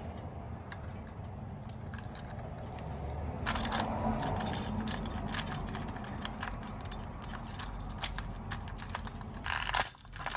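Metal key blanks jingling and clinking as they are handled, a few light clicks at first and then a busy stretch of clinking from about a third of the way in, with a louder flurry near the end.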